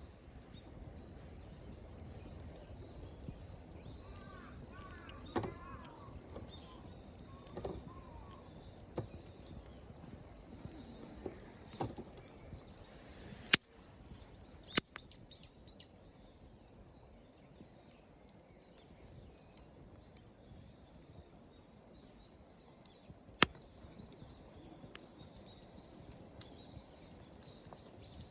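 Firewood burning in a campfire, giving off sparse, sharp crackles and pops, a few seconds apart. Birds chirp faintly in the background.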